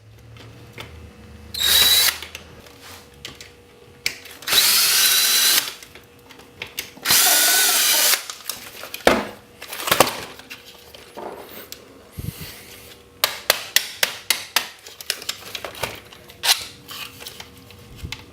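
Power drill spinning in three short bursts of about a second each, backing screws out of a toy RC car's plastic body, with a whine that dips as each burst ends. In the second half, a quick run of light clicks and knocks as plastic parts are handled.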